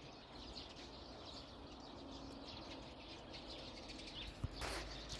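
Faint, scattered bird chirps over a low steady background hiss, with a brief rustle near the end.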